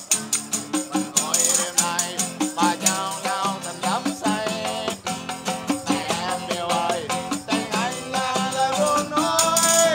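Live music: a man singing to an acoustic guitar, with a tambourine shaken in a quick, steady rhythm.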